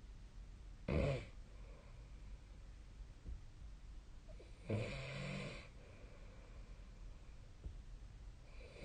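A sleeping person snoring: a short, sharp snore about a second in, then a longer snore near the middle, and another beginning at the very end.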